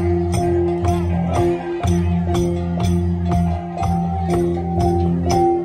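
Central Highlands gong ensemble (cồng chiêng) playing for a circle dance: several gongs ringing on in sustained, overlapping tones, with sharp strikes at a steady beat of about two a second.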